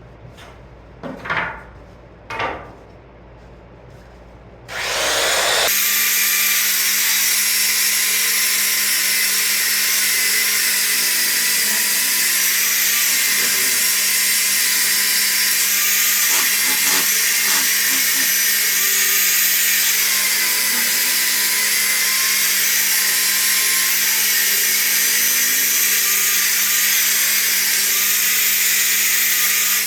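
A Metabo HPT belt sander starts about five seconds in and runs steadily, sanding the edge of a poplar tongue-and-groove board down to its scribe line. Two short knocks come before it starts.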